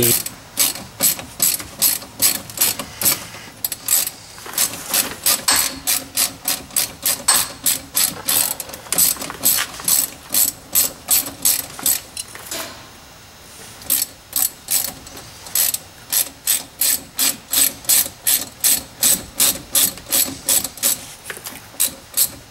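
Ratchet wrench clicking in steady back-and-forth strokes, about two to three clicks a second, as it backs out the brake caliper bolts with a 7 mm hex bit. The clicking pauses briefly a little past halfway, then resumes.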